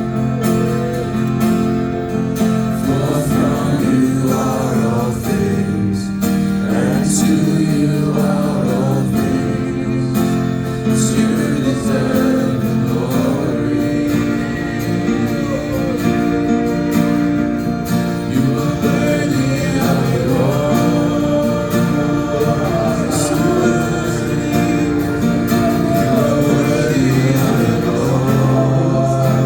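A gospel worship song: a congregation or choir sings over held instrumental chords, steady and continuous.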